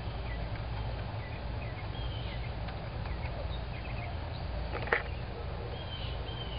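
Birds chirping over a steady low hum, with one sharp click about five seconds in.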